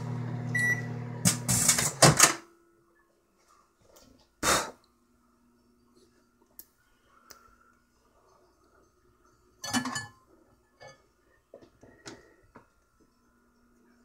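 Microwave oven running with a steady hum and sharp crackles from a metal mesh box arcing and burning inside, cutting off suddenly about two seconds in. Afterwards mostly quiet, with a few scattered clicks and knocks, the loudest about ten seconds in.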